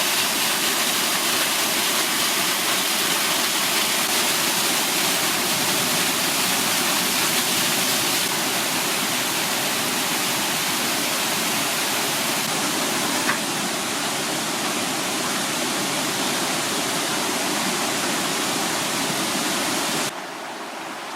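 Rushing water of a mountain gorge stream cascading over rocks, a steady loud hiss. The sound shifts slightly about a third and two thirds of the way through, then drops in level near the end.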